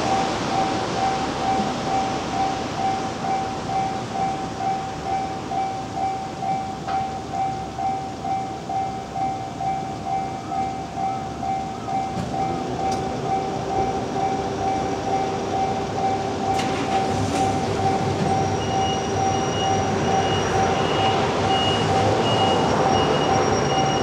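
Railway level-crossing warning bell ringing at about two strokes a second. An electric train comes closer in the second half, its motor whine and running noise growing louder.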